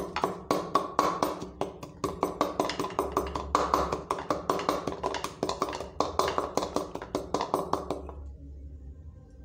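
Wooden pestle pounding groundnuts in a wooden mortar: a quick, even run of knocks, about four a second, stopping near the end.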